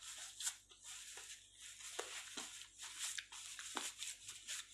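Tissue paper crinkling and rustling in the hands, in short irregular strokes.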